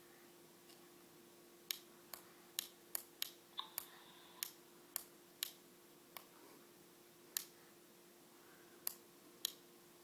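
Sharp clicks of a recordable storybook's plastic buttons being pressed, about fourteen in irregular quick succession, with a short faint tone about three and a half seconds in.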